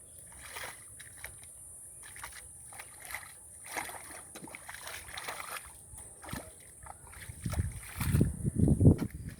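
River water splashing and sloshing in irregular strokes, heavier and deeper near the end.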